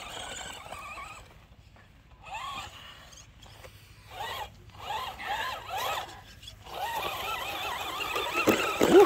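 Electric motor and gears of a 1:10 Carson Mega Duster RC monster truck whining in several short throttle bursts, the pitch rising and falling with each burst, loudest near the end.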